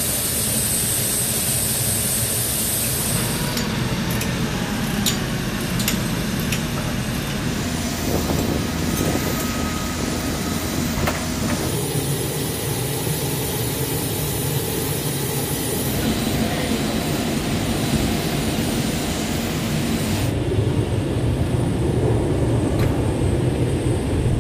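Steady airbase flightline noise: jet engines and ground support equipment running, the mix changing abruptly several times.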